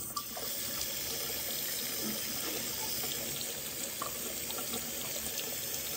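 Faucet running steadily, the stream splashing over a glass jar held beneath it and into a sink.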